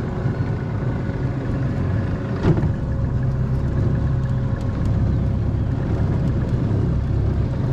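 Engine running steadily with a low hum, with one short sharp knock about two and a half seconds in.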